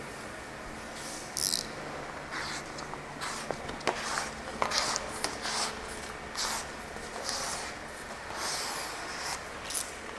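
Large sheet of vinyl car-wrap film and its paper backing rustling and crackling in short, irregular bursts as it is handled against a car door, over a faint steady hum.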